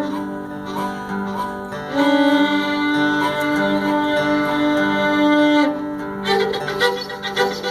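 Solo fiddle imitating railroad sounds. Long held double-stop notes over a low drone slide in pitch, then change about six seconds in to fast, short, rhythmic bow strokes.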